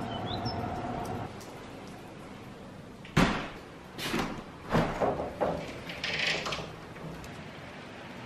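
A tall casement window being unlatched and pushed open: a sharp loud knock about three seconds in, then several clunks and rattles of the latch and frame, and a short scrape as it swings. A steady hum runs through the first second.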